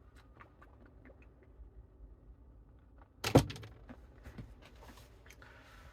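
Faint clicks and handling noises of objects being picked up and moved, with one sharp thunk a little over three seconds in.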